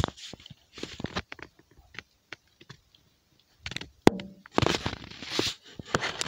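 Close-up rustling and scattered clicks from a small white dog's fur brushing against the phone as it is petted and handled, with a sharp click about four seconds in.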